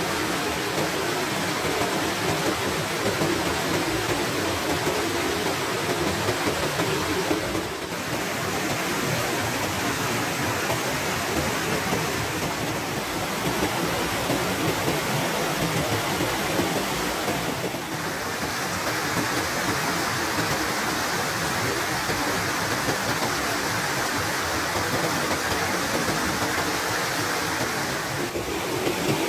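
Rushing water in a narrow stream channel, pouring over a small drop and churning white under a footbridge: a steady, loud rush that dips briefly three times where the shots change.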